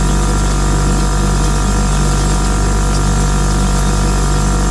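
Refrigerator buzzing from inside the cabinet: a steady electrical hum made of many even tones stacked from deep bass upward, with a light hiss over it and no change in level.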